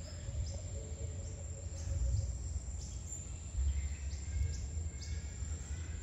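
Outdoor ambience: a low rumble on the microphone, with scattered faint, short, high chirps throughout and a faint steady hum that fades out about two and a half seconds in.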